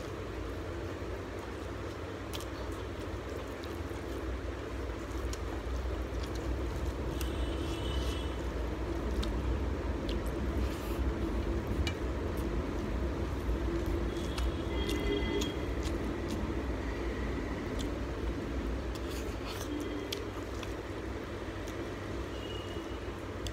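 Eating prawn curry and rice by hand: wet chewing and squishing mouth and finger sounds, with scattered sharp clicks, over a steady low hum.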